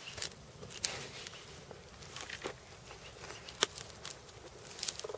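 Green fruit-wood cooking fire crackling, with scattered sharp pops and a couple of louder cracks.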